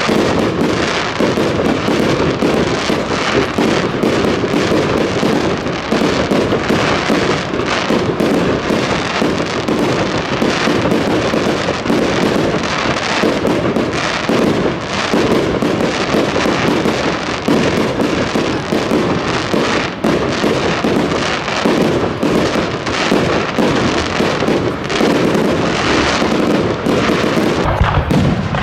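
Fireworks display: a dense, continuous barrage of bangs and crackling bursts, shell after shell with hardly a pause.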